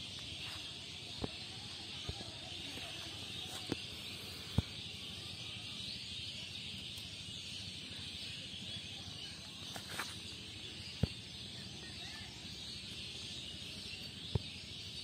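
Steady high-pitched outdoor background noise, with a handful of short sharp clicks and taps from a small fish being handled and unhooked from a fishing line.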